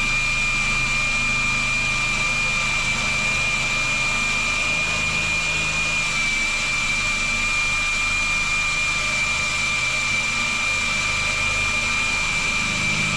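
DeWalt power drill running steadily under load, drilling into a steel wall safe, with a constant high-pitched whine.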